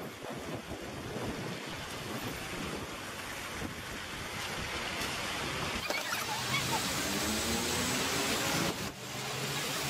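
Road noise from a car driving on a wet street: a steady hiss of tyres on water. Past the middle it grows louder, with an engine note climbing in pitch, then drops suddenly near the end.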